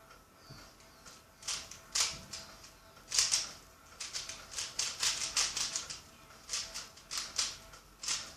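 Plastic Rubik's Cube layers being turned by hand: a run of quick clicking clacks, some single and some in fast strings, with a rapid flurry in the middle.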